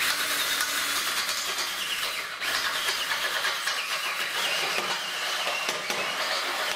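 Handheld power drill boring a hole through square steel tubing, the bit cutting metal with a continuous grinding sound. It eases off briefly about two seconds in, then bites again.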